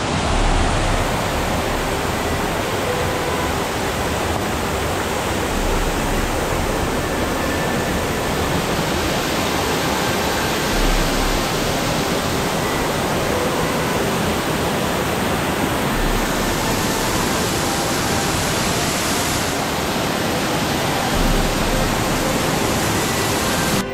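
Loud, steady rush of a fast mountain creek tumbling over rocks.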